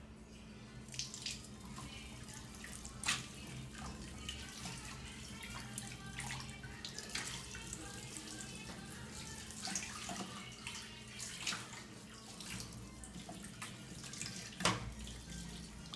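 Tap water running into a stainless steel kitchen sink while dishes are washed, with ceramic bowls and plates clinking and knocking against each other now and then; the loudest knock comes near the end.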